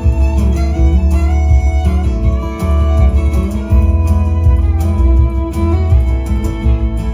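Acoustic country string band playing an instrumental break: strummed acoustic guitar and a steady bass under a lead melody with sliding notes.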